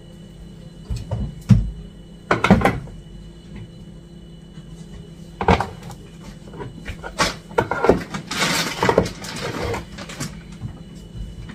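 Kitchen cupboard doors and groceries being handled while food is put away: a series of knocks and clatters. A stretch of rustling comes about eight to ten seconds in.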